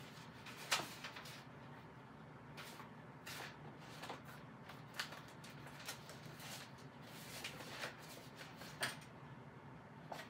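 Sheets of paper and a folder being handled and sorted through on a workbench: scattered rustles and light knocks, the sharpest about a second in and another near the end.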